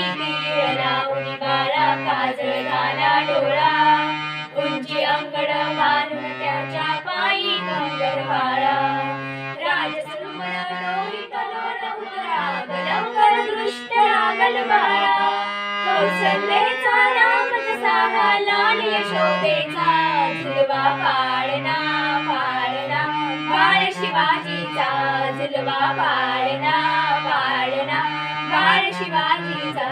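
Women singing a Marathi palna, a traditional cradle song, together over instrumental accompaniment with sustained low notes that step from chord to chord.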